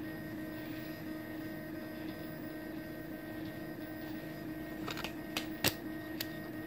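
Original Prusa i3 3D printer running its bed calibration, the PINDA probe searching for a calibration point: a steady hum of fans and stepper motors, with a few sharp clicks in the last two seconds.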